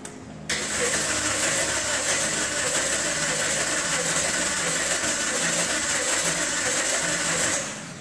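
2009 Toyota Corolla four-cylinder engine being cranked over by its starter with the injectors disconnected, so it does not fire. It starts about half a second in and stops near the end. The cranking doesn't sound right: cylinders 1 and 2 are low in compression.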